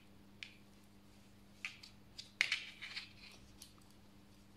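Metal knitting needles clicking lightly and irregularly as stitches are worked, a handful of sharp small clicks with a short cluster about halfway through.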